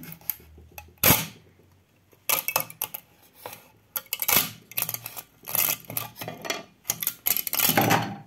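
A black 3D-printed plastic part being pried off a metal printer build plate: sharp cracks and clicks as it breaks free, the loudest about a second in, then bursts of crackling, the longest near the end.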